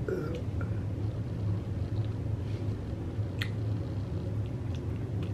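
A steady low hum, with a few faint sharp clicks and soft eating noises from a fork working through a bowl of cheese-covered hot Cheetos.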